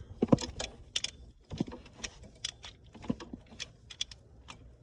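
Scattered light metallic clicks and taps, a few a second and irregular, from a socket wrench and wiring being handled while the winch solenoid's terminal nuts are tightened.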